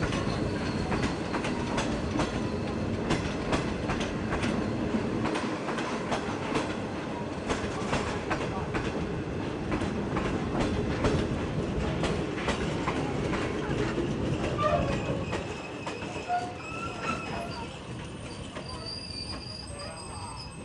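Passenger coaches rolling past, their steel wheels clicking over rail joints with a rumble. The sound fades about fifteen seconds in as the train draws away.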